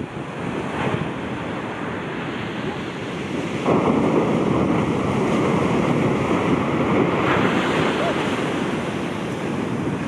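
Shorebreak waves crashing onto the sand, with wind on the microphone; about a third of the way in a heavier wave breaks and its rush stays loud for a few seconds before easing.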